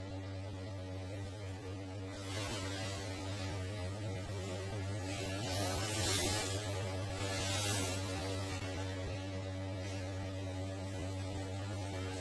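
Steady electrical hum: a low, even buzz with a stack of overtones, with a few soft hissy swells rising and fading over it.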